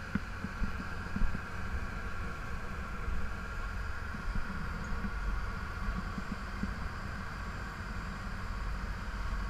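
Passenger boat's engine running steadily under way, a low rumble mixed with the rush of the wake and wind on the microphone. A few louder bumps come in the first second and a half.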